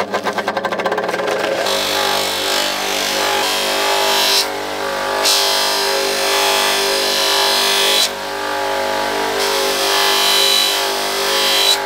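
Metabo DS 200 bench grinder running with a cotton buffing wheel: the motor comes up to speed with a fluttering pulse, then a steady hissing scrub as a thin metal ring is pressed against the spinning buff. The hiss drops out twice briefly as the ring is lifted off.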